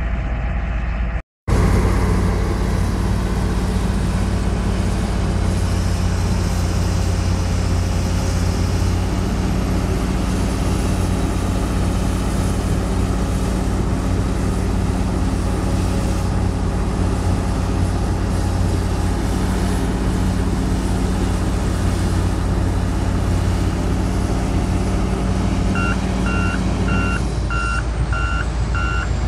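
Heavy diesel earthmoving machinery, a Lonking CDM6225 crawler excavator with a motor grader beside it, running steadily under load. A reversing alarm starts near the end, beeping about twice a second.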